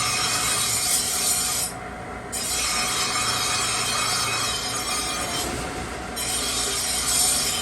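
Steel cleaver blade being ground against a powered abrasive: a steady, high hissing grind, with contact broken briefly about two seconds in and again near six seconds.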